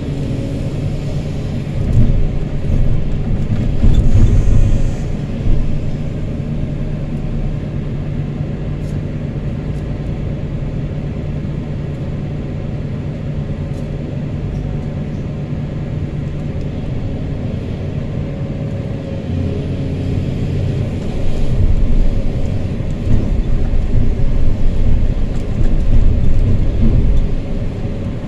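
Excavator's diesel engine and hydraulics running steadily, heard from inside the operator's cab. The engine grows louder for a few seconds about two seconds in, and again over the last several seconds as the bucket is emptied of sand into a dump truck.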